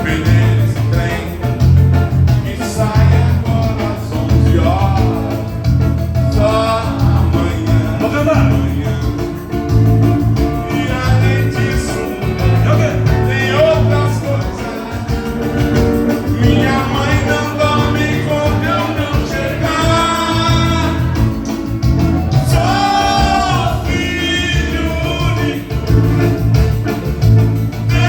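Live band playing dance music with a male vocalist singing, over a steady bass and drum beat.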